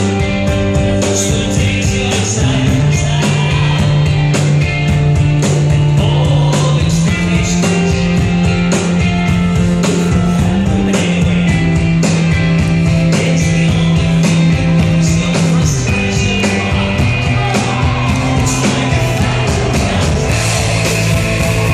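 Rock band playing: electric guitars and bass over a steady drum beat, the bass holding long notes that shift pitch every few seconds.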